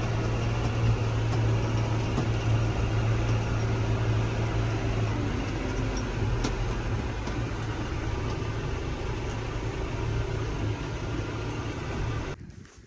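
A vehicle engine running steadily: a low, even hum under constant mechanical noise. It cuts off suddenly near the end.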